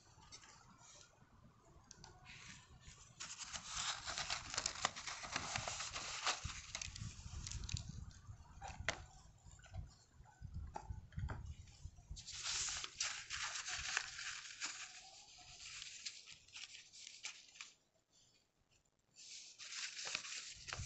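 Paper and cardboard rustling and crinkling in three bursts, as an incense box is handled and the paper wrapper around a bundle of incense sticks is folded open.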